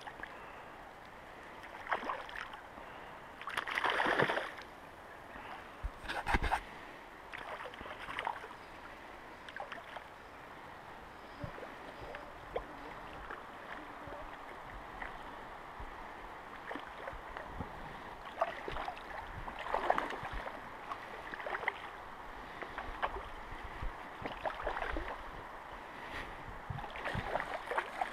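Shallow river water running and lapping close by, with irregular splashes through it and a sharper knock about six seconds in.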